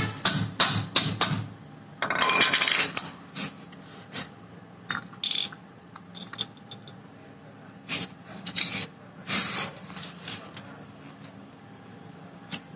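Irregular metallic clinks, taps and a rattling scrape of steel starter-motor parts being handled. A Bendix drive pinion is worked on its shaft with a steel rod to free its lock. The longest scrape comes about two seconds in, and single clinks follow.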